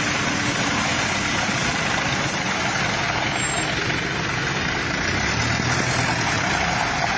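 Heavy diesel engine idling at a steady, unchanging level.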